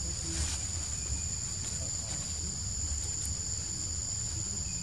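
Steady high-pitched drone of a forest insect chorus, unbroken throughout, over a low rumble.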